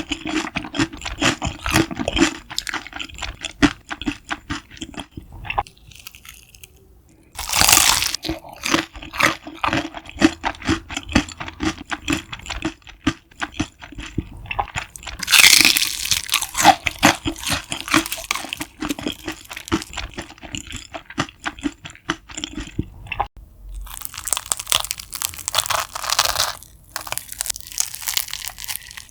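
Close-miked biting and chewing of crispy fried food. Loud crunches come at several bites, with steady wet chewing clicks between them.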